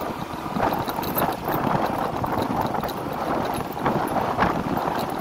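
Riding noise from a first-generation Yamaha NMAX scooter under way: wind rushing and buffeting over the microphone in uneven surges, with road and engine noise beneath.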